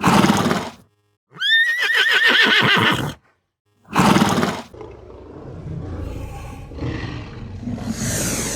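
A horse whinnying: a high call of about two seconds with a quavering pitch, between two short, loud, harsh calls, followed by a quieter rumbling stretch.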